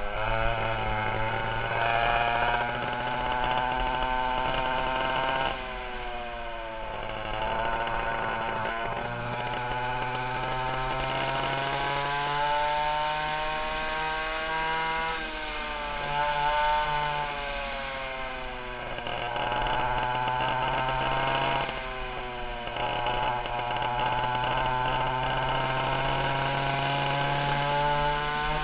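Twin two-stroke chainsaw engines of a 1960 Fox go-kart running hard. The pitch climbs as they rev up, drops sharply several times as the throttle is eased off, and climbs again.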